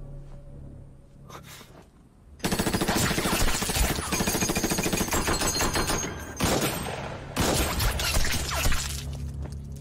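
Submachine gun firing a long automatic burst that starts about two and a half seconds in, followed by two shorter bursts near the end.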